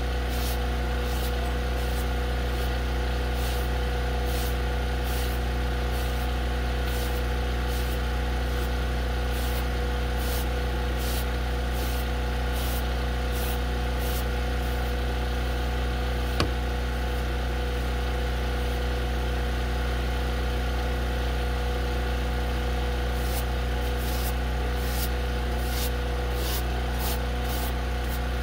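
A steady engine hum with unchanging tones, like an engine or generator idling. Over it come short scratchy strokes, about one and a half a second, which stop for several seconds in the middle and start again. There is one sharp click about two-thirds of the way through.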